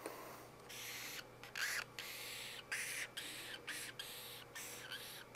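Felt-tip marker squeaking and scratching across flip-chart paper in a quick series of short strokes, drawing a stepped line.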